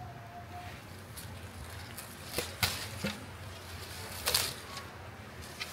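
Short crisp snaps and rustles, five or so spread over a few seconds, of African basil sprigs being plucked by hand, over a faint steady low hum.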